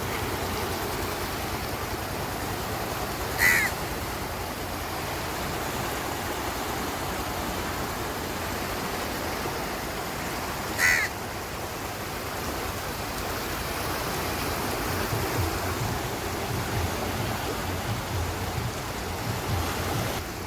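Rushing of a flood-swollen river flowing very fast and hard against the bank, a steady roar of water. A bird gives a short call twice, about seven seconds apart.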